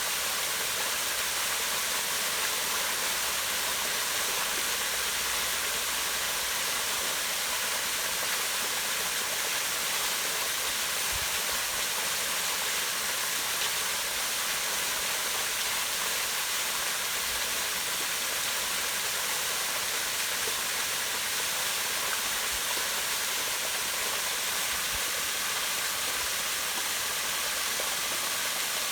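Small waterfall spilling down rock into a pond: a steady, even rush of falling and splashing water.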